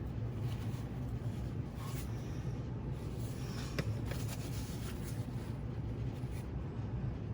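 A few faint light clicks and scrapes of small knife parts being handled and worked with lubricant, the sharpest click about four seconds in, over a steady low background hum.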